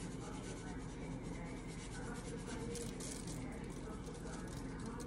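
Salt shaken from a canister onto the skin of a raw whole chicken: a faint, soft rustle of falling grains, over a steady low hum.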